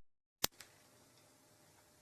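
Near silence, broken by a single sharp click about half a second in.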